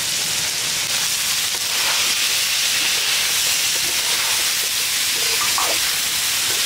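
Sliced onions and ripe chillies frying in hot oil in a pan: a steady sizzle.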